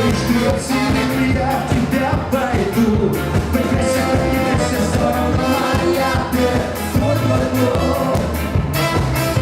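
Live cover band playing a pop-rock song, a singer's voice over a steady drum beat, bass and instruments, recorded in a club.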